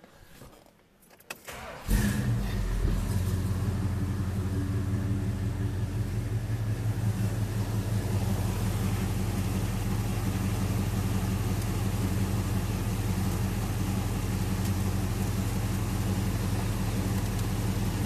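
A 1969 Dodge Super Bee's V8 is started about two seconds in. It catches at once and settles into a steady idle.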